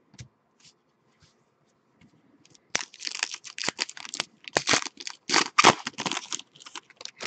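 A foil pack of 2013-14 Panini Elite basketball cards being torn open and crinkled by hand, with a dense run of crackling starting about three seconds in. Before it come a few light ticks of cards being handled.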